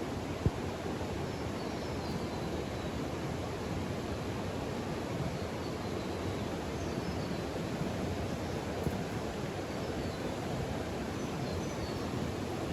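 Steady outdoor ambient noise with faint high bird chirps now and then, and a single short knock about half a second in.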